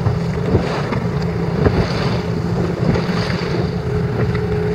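Wind buffeting the microphone over the wash of the sea and the steady low drone of a boat, with a faint hum coming in near the end.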